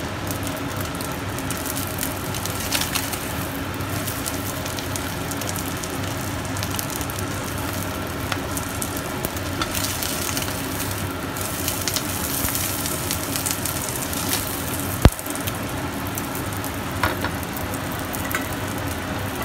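Egg and oyster omelette sizzling and crackling in hot oil in a frying pan, with a spatula working in the pan as it is lifted out. A single sharp tap about fifteen seconds in is the loudest moment.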